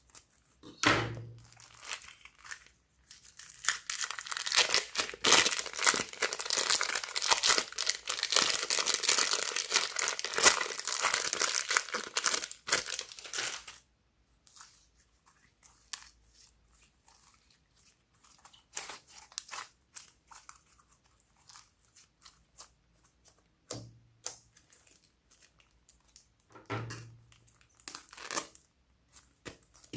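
Slime being worked by hand: sticky crackling and tearing sounds as it is stretched and squished. A dense run of crackling lasts about ten seconds, then thins out to scattered small pops and clicks.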